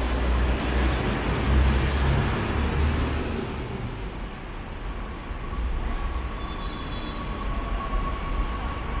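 Street traffic: a heavy motor vehicle's low engine rumble passes close and fades after about three seconds, leaving a lighter steady traffic hum. A thin steady high tone comes in about halfway.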